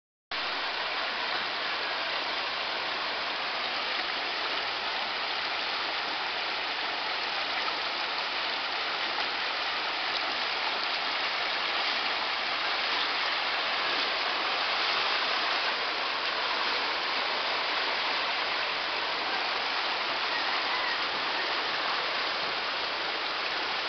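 Muddy floodwater rushing along a street, a steady rush of water.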